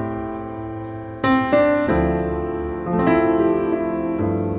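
Background piano music, with new chords and notes struck roughly once a second and ringing on between them.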